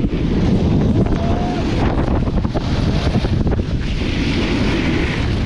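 Wind buffeting the microphone of a pole-mounted camera on a snowboard ride down a groomed slope, a steady low rumble. From about four seconds in, the board's edge hisses over the snow in a carved turn.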